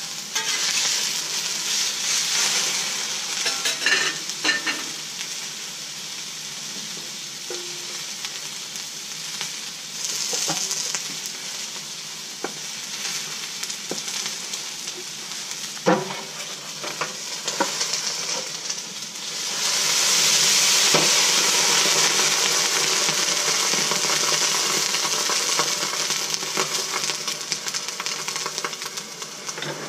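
Raw chicken breasts sizzling on a hot Blackstone flat-top griddle, a steady hissing sizzle that swells noticeably louder about two-thirds of the way through and eases off near the end. A few sharp clicks break through it.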